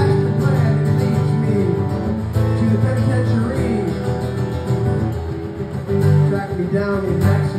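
Acoustic guitar strumming chords in an instrumental passage of a song, without singing.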